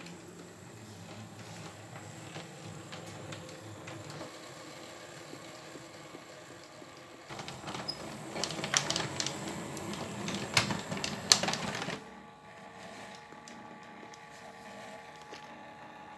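Motorised Dicky-Toy Cityliner model tram running along its track: the small motor and wheels make a steady running noise that grows louder about seven seconds in, with a run of sharp clicks as the wheels cross the points, then settles back to a quieter steady run about twelve seconds in.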